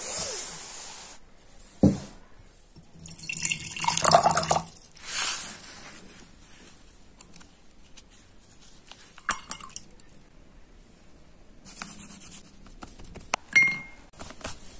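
Water splashing and dripping in a paint-rinsing jar, in short irregular bursts, with occasional clicks and paper handling from a small sketchbook.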